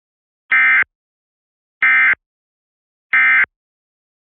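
Emergency Alert System end-of-message tones: three short bursts of the warbling digital SAME data signal, about a second and a half apart, marking the end of the required monthly test alert.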